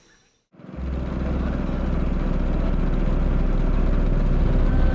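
A small boat's outboard motor running steadily at cruising speed after a brief silence, fading in about half a second in and growing slightly louder.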